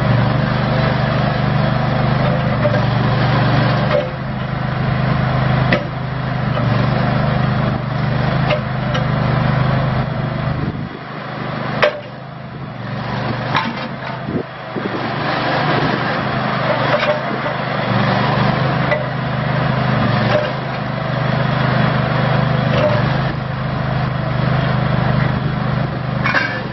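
Terramite T5C mini backhoe loader's Kohler engine running steadily. Its low drone fades for a few seconds about eleven seconds in, then comes back. Occasional sharp clicks and knocks sound over it.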